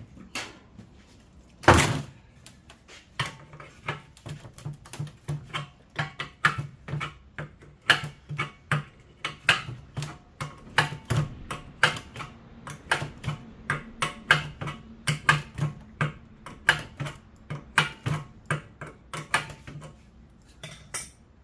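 Metal clicks and knocks from hand-dismantling a scrap electric fan motor, coming about two or three a second, with one loud bang about two seconds in.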